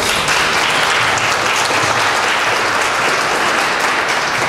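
Audience applauding, a steady round of hand-clapping.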